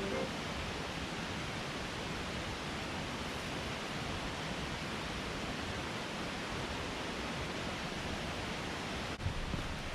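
A waterfall pouring into a mountain stream gorge: a steady, even rush of falling water. About nine seconds in there is a sharp click, and the rushing continues with a slightly rougher sound.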